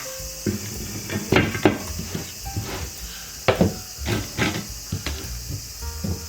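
Irregular knocks and clatter, about a dozen sharp hits in six seconds, with steady music underneath.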